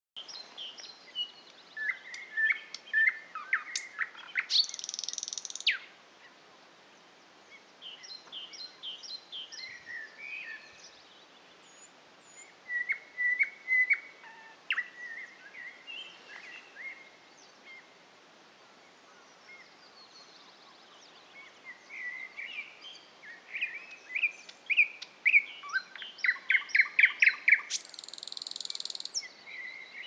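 Thrush nightingale singing in phrases of varied whistles and clicks, separated by pauses of a few seconds. Near the end comes a fast rattle of evenly spaced notes. Harsh rasping notes come about five seconds in and again just before the end.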